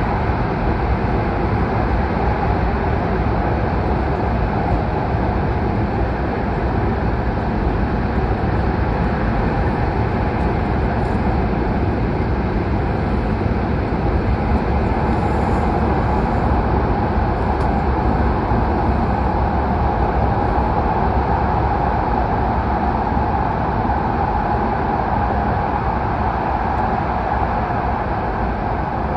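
H5 series Shinkansen train running through the Seikan Tunnel, heard from on board: a steady, even running noise that does not change over the whole stretch.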